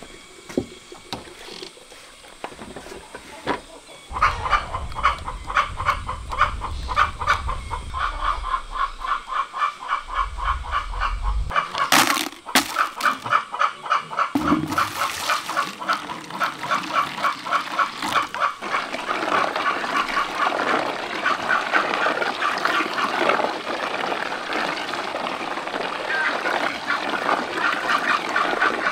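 Ducks quacking in a rapid, continuous chatter that starts about four seconds in.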